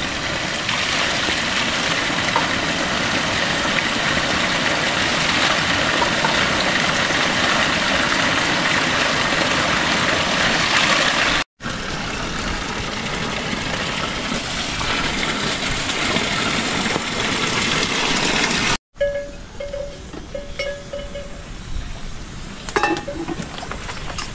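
A jet of water pours from a spout and splashes onto rocks and a stony path, making a steady gushing rush. Shortly before the end the rush stops at a cut, giving way to quieter sounds with a few short tones and clicks.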